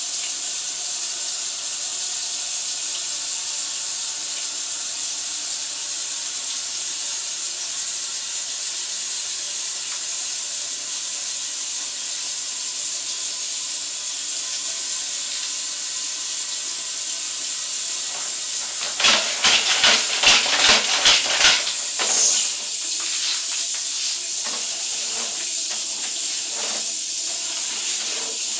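Steady high hiss from the sewer-camera recording. About two-thirds of the way in comes a quick run of sharp clacks and knocks, then lighter scattered knocks, as the push cable is pulled back through the pipe.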